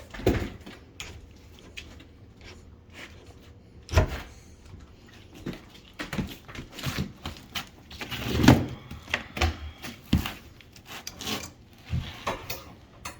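Irregular knocks, clicks and rattles of hands working fittings and a drain hose inside a sink cabinet, with a sharp louder knock about four seconds in and a longer clatter around eight and a half seconds.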